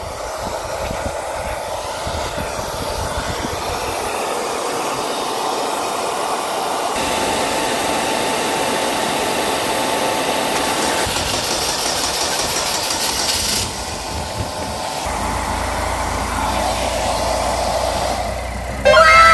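Hand-held hair dryer running steadily, a blowing hiss with a steady whine, aimed at a car's LPG vaporizer to warm it for a cold start. In the last moment a much louder burst of falling, whistling tones cuts in.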